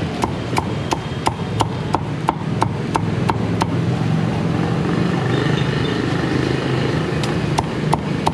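Cleaver chopping crackling-skinned roast pork on a thick wooden chopping block: quick, even strokes about three a second, a pause of a few seconds, then a few more strokes near the end, over a steady low background rumble.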